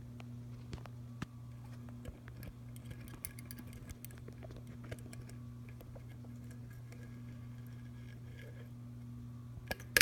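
Dayton 3C691 56-inch commercial ceiling fan's cast-aluminum motor running with a steady low hum and an overtone above it. Light handling clicks throughout, with a few sharper clicks near the end.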